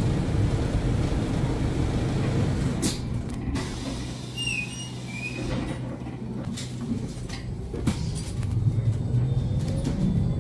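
Alexander Dennis Enviro400H hybrid double-decker bus heard from inside the upper deck. A steady low rumble eases to a quieter hum in the middle, with a few clicks and a couple of short high tones. It builds again near the end with a rising whine as the bus gathers speed.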